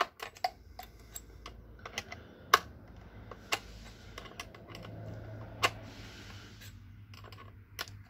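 Irregular plastic and metal clicks and taps from a Husqvarna 120 Mark II chainsaw's side cover and bar being handled while its chain tensioner screw is turned. A faint low hum swells in the middle.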